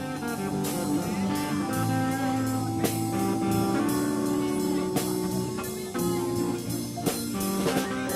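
Instrumental music with a steady beat: held pitched notes changing every second or so over regular percussion strokes.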